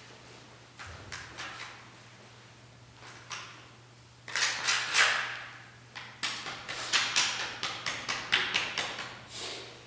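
Paper rustling and scraping as hands work over a large sheet. It is faint at first, then from about four seconds in comes a quick, irregular run of short rustles and scratches.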